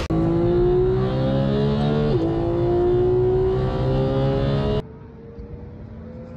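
Porsche sports car engine under hard acceleration, its note climbing steadily in pitch, with a quick upshift about two seconds in before it climbs again. About five seconds in it becomes much fainter, a distant engine note still rising.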